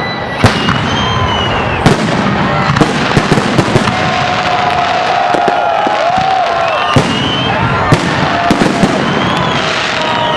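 Fireworks salute bursting overhead: a series of sharp bangs at irregular intervals, with a quick run of pops about three to four seconds in.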